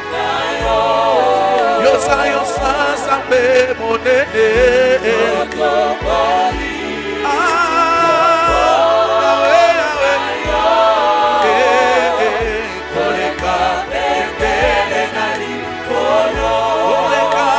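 Congolese gospel worship music: several voices singing an adoration song together, with wavering vibrato, over a steady low accompaniment.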